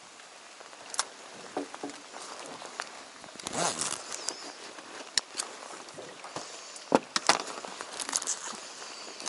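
Rain jacket rustling as it is handled and its zipper fiddled with, with scattered sharp clicks, the loudest about seven seconds in, and a short rustling rush a few seconds in. Light rain pattering underneath.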